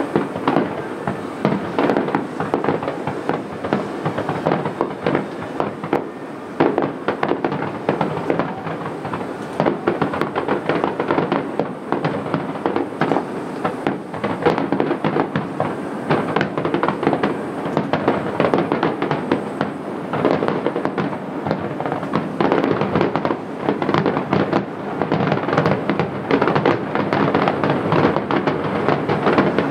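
Aerial fireworks finale: a continuous barrage of shell bursts, dense overlapping bangs with crackle between them, building a little louder near the end.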